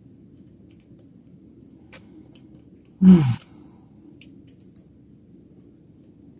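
Faint, scattered metallic clicks of a lock pick and tension tool working the pin stack of a spool-pinned padlock. About three seconds in, a single loud, short sound falls in pitch, louder than the clicks.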